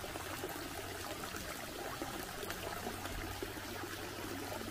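Steady running, trickling water.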